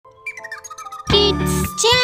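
Children's music intro jingle: a quick run of light, tinkling chime notes, then the full music comes in loudly with a bass about a second in.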